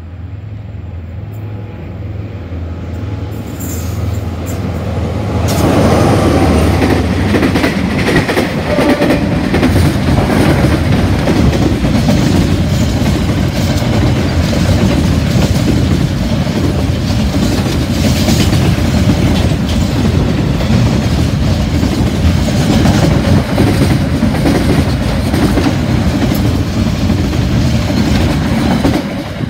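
Freight train passing close by: a locomotive's low drone builds as it approaches, then from about five seconds in the wagons rumble and clatter past on the rails, loud and steady until the level falls away at the very end.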